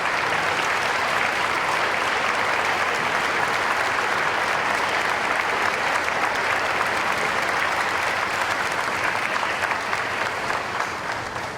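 An audience in a hall applauding steadily for about eleven seconds, the clapping fading away near the end.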